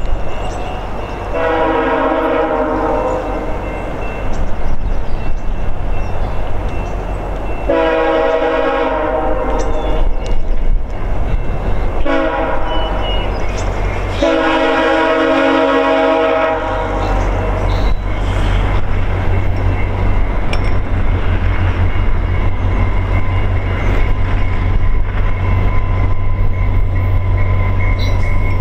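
VIA Rail F40PH-2 diesel locomotive sounding its multi-note horn in four blasts, long, long, short, long: the standard grade-crossing signal. After the last blast the low rumble of the diesel engine and the train on the rails grows steadily louder as the passenger train approaches.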